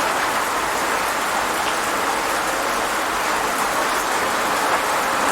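Rain falling steadily, an even patter of drops that neither rises nor fades.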